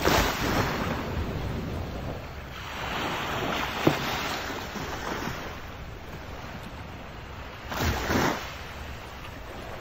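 Small sea waves washing onto the shore, swelling and fading in surges a few seconds apart, with some wind on the microphone. A brief sharp click about four seconds in.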